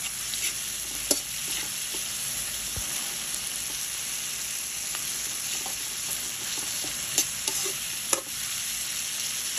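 Garlic, onion and tomato sizzling in hot oil in a metal wok as they are stirred, with a metal spatula scraping and clinking against the pan a few times.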